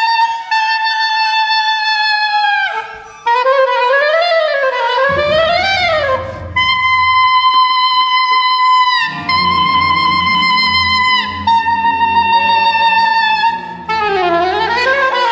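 Soprano saxophone playing long, high held notes, broken twice by wavering glides up and down. Low bowed strings sustain quietly underneath for part of the time.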